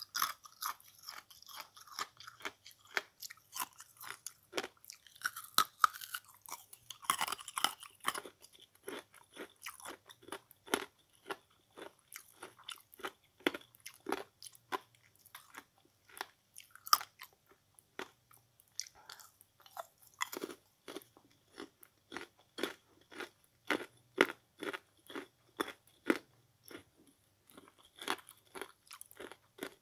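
Someone chewing small pieces of kitchen sponge close to the microphone: a quick, irregular run of short crunches, several a second.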